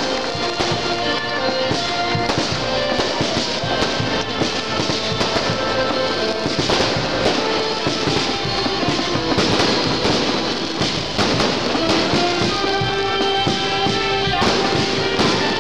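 Fireworks crackling and popping in rapid, irregular cracks, over music with held notes playing throughout.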